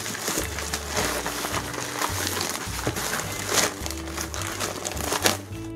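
Plastic mailer bag and bubble wrap crinkling and rustling in short scratchy bursts as a package is torn open by hand, over steady background music.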